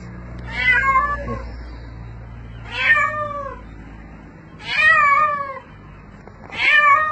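Cat meowing loudly and repeatedly: four long, drawn-out calls about two seconds apart, each rising and then falling in pitch, the cries of a cat stranded and clinging to a wall.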